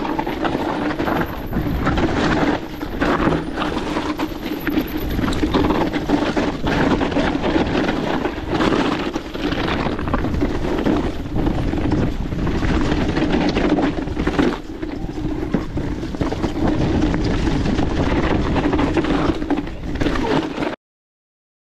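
Electric mountain bike being ridden on a rough trail: continuous tyre rumble with frequent rattles and knocks from the bike, and wind buffeting the camera microphone. It cuts off abruptly near the end.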